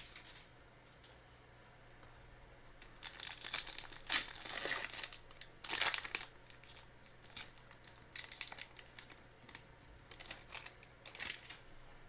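Foil trading card packs and cards being handled and opened: irregular rustling and crinkling in short bursts.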